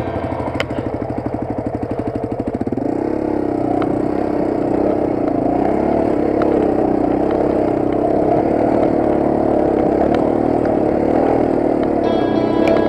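An engine running, with fast, even pulses at first; about three seconds in it goes over into a fuller, steadier note whose pitch wavers.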